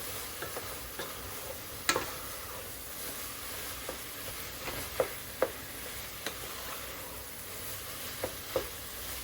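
Taco-seasoned ground turkey frying in a pot with a steady sizzle while it is stirred, the utensil clicking against the pot a few times.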